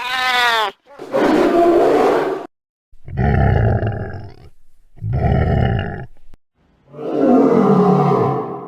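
Male African lion roaring and grunting in a run of about five short bursts, each a second or two long, broken by brief silent gaps.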